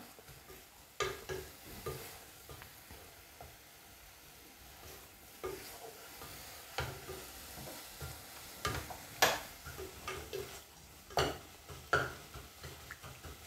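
Wooden spatula stirring a sticky grated-coconut and caramel filling in a non-stick pot. Soft scraping with scattered light knocks of the spatula against the pot, the sharpest about nine seconds in.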